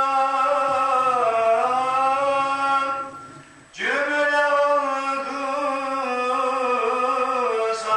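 A solo male voice chants a Turkish mevlid recitation unaccompanied, holding long, slowly ornamented notes. A little past three seconds in the voice stops for about half a second for a breath, then comes back in on a rising slide.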